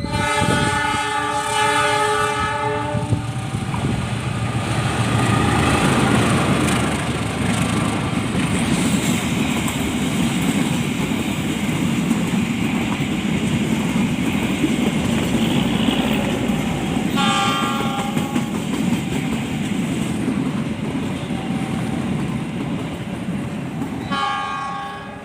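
A passing train: the locomotive's horn sounds a long chord at the start, then the steady rumble and clatter of the train rolling past, with two short horn blasts later on, about two-thirds of the way in and near the end.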